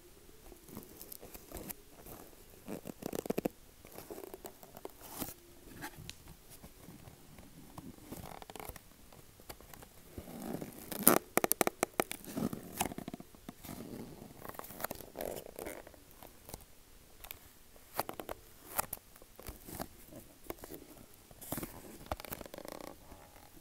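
Tapping on objects: irregular taps and clicks mixed with scratchy rustling, with a quick flurry of taps about eleven seconds in.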